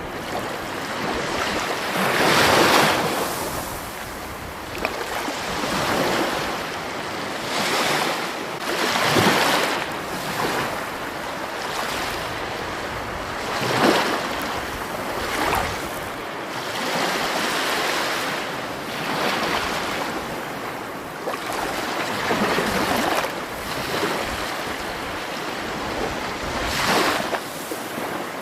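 Rushing, splashing water, a steady wash that swells in irregular surges every second or few seconds.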